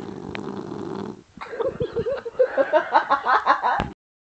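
Boston terrier snoring in its sleep: one long rough snore, then after a short pause a rapid, fluttering, pitched snore that stops abruptly near the end.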